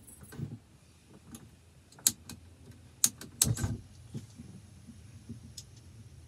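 A remote-canister backpacking gas stove being lit: a few sharp clicks, about a second apart, from two to three and a half seconds in. A short low burst follows as the burner catches, then a faint steady hiss.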